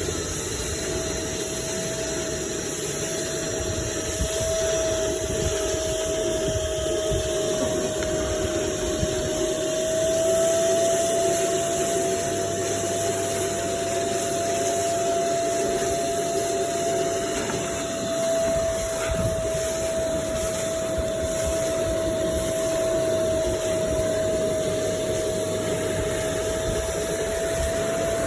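Carpet-cleaning wet vacuum or extraction machine running steadily: a constant single-pitch motor whine over a rushing of air and water.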